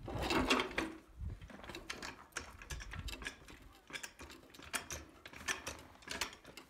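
Hydraulic floor jack being pumped by its long handle to raise a garden tiller: a run of uneven mechanical clicks and clunks, a little louder in the first second.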